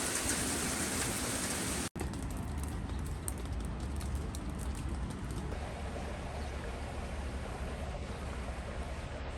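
Steady rain falling, an even hiss, with a brief dropout about two seconds in.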